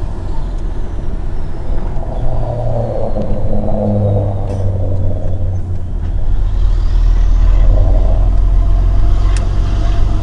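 Volvo FH16 520's 16-litre straight-six diesel pulling the truck along, heard from inside the cab as a steady deep rumble whose engine note shifts a little. A faint whistle falls in pitch over the first few seconds and rises again later on.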